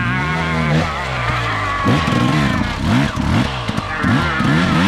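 Dirt bike engine revving in quick throttle blips, its pitch steady at first, then rising and falling several times in a row through the second half.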